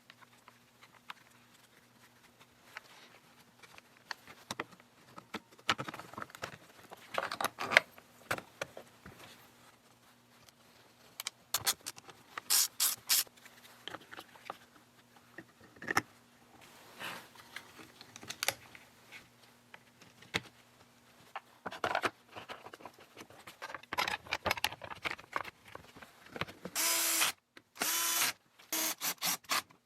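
Small plastic and metal chainsaw parts clicking, rattling and scraping as a Stihl MS192T is reassembled by hand, in scattered bursts that get busier near the end. A faint steady hum stops about two-thirds of the way through.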